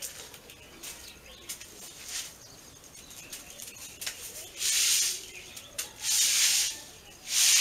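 A bundle broom sweeping a tiled floor: three swishing strokes about a second and a half apart, starting about five seconds in, after a quieter stretch.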